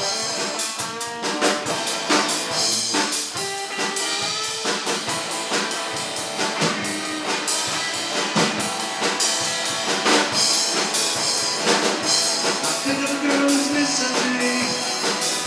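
Live rock band playing an instrumental passage between verses, driven by a drum kit with steady beats and rimshots under sustained pitched instruments.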